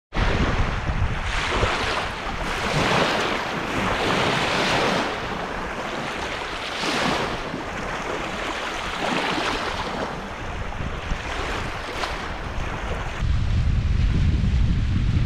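Small bay waves lapping and breaking on a sandy shore, washing in and out in swells every couple of seconds. Near the end, wind buffeting the microphone takes over as a low rumble.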